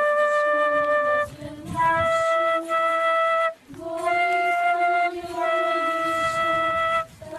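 Flute playing a slow melody of long held notes, in phrases with short breaks between them, over a quieter lower line.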